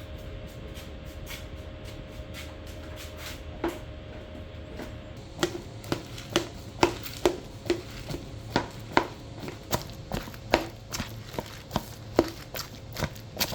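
Knife chopping on a cutting board: irregular sharp knocks, faint at first, then louder and about two a second from about five seconds in.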